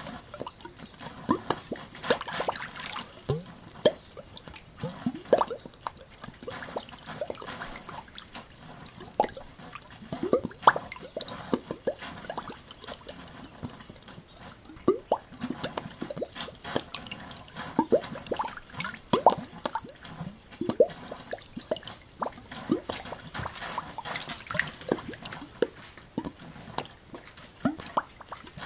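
Spring water gushing from a pipe, gurgling and plopping irregularly over a steady splashing hiss; many of the plops rise quickly in pitch.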